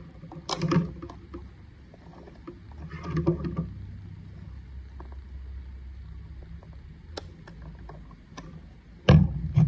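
Plugs and plastic connectors of a standing desk's control box cables being handled and pulled apart: rustling and clattering twice, scattered sharp clicks, and a loud thump near the end, over a low steady hum.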